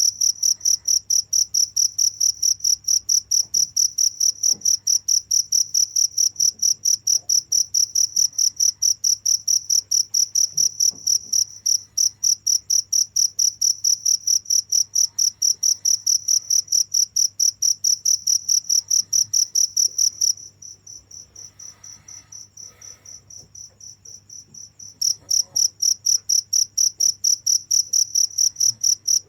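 Cricket chirping: a high-pitched chirp repeated rapidly and evenly. About two-thirds of the way in the loud chirping stops for roughly four seconds, leaving only a fainter chirp, then starts again.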